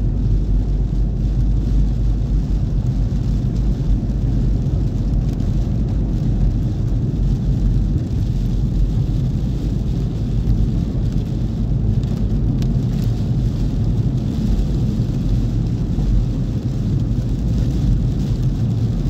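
Steady cabin noise from inside a car driving on a wet road in rain: a constant low rumble of engine and tyres, with no distinct events.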